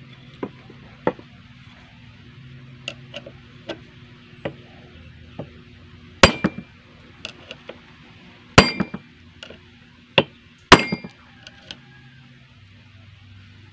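Sharp metal-on-metal strikes on a screwdriver braced against a mini chainsaw's clutch, driving the clutch tight counter-clockwise. Light scattered taps come first, then, in the second half, four loud ringing strikes among smaller ones.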